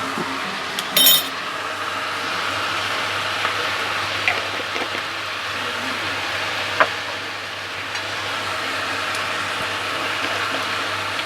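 Chopped onions and capsicum sizzling in hot oil in a kadai, with a spoon clinking against the pan, sharply about a second in and again near seven seconds.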